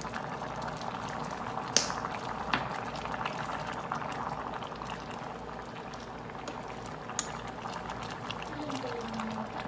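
Large pot of pork-hock and jackfruit soup boiling hard, a steady bubbling with fine crackles. A sharp click comes about two seconds in and a few fainter ones later, as a metal spoon stirs the pot.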